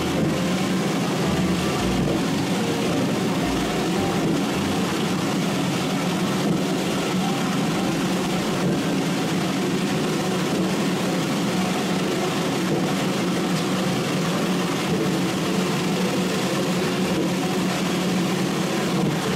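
Steady, unbroken engine and road noise of a moving vehicle, with a strong low hum and no pauses or distinct events.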